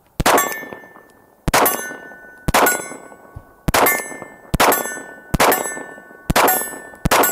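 ZRO Delta FKS-9 9mm pistol fired eight times at a slow, steady pace of about one shot a second. Each shot is followed by the ringing clang of the hit steel target.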